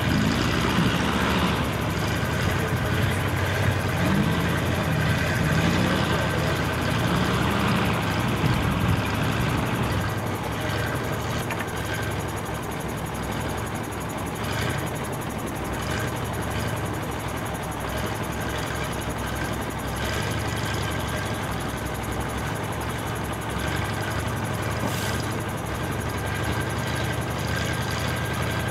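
Off-road trial truck engine working under load as it climbs a rocky slope. The revs rise and fall repeatedly for about the first ten seconds, then it runs more steadily and a little quieter.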